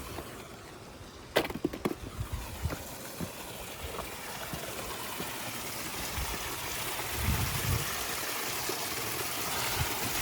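Hot spring water rushing and splashing, an even hiss that grows steadily louder. A sharp knock about a second and a half in is followed by a few crackles.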